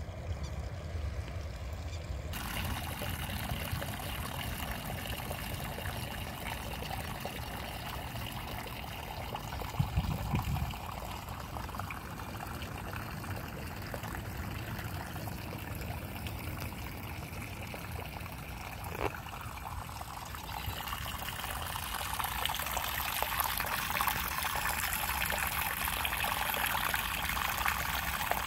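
Water trickling steadily, growing louder in the last several seconds, with a brief thump about ten seconds in.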